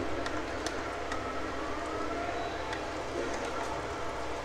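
A utensil clicking and scraping against a ceramic bowl as it mixes a soft, wet pudding-and-pineapple mixture, over a steady low hum. A faint tone slowly rises in pitch through the middle.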